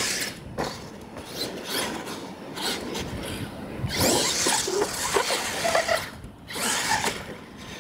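Radio-controlled monster trucks driven hard on a dirt track: motors whining up and down in bursts as the throttle is worked, with tires scrabbling over the dirt.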